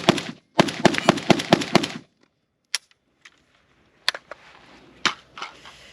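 PSA AK-105 rifle in 5.45x39 firing a rapid string of about ten shots, roughly seven a second, that stops about two seconds in. A few single sharp cracks follow, spaced a second or so apart.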